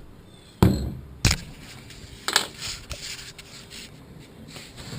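Two sharp knocks about a second in, then a clattering scrape, as objects are handled and put down.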